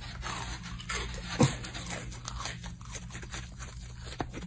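Close-up crunching of crunchy food being bitten and chewed, with one sharp crack about a second and a half in.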